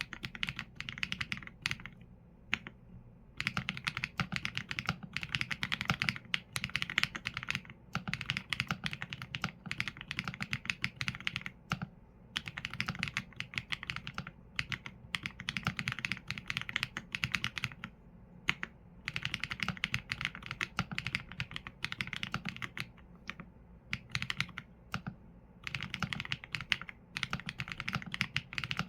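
Qsenn A75 mechanical keyboard with Leobog Graywood V4 linear switches and PBT keycaps being typed on in runs of quick keystrokes broken by short pauses.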